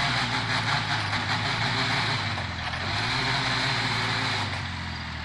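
An engine running steadily at an even low pitch, dipping a little in level near the end.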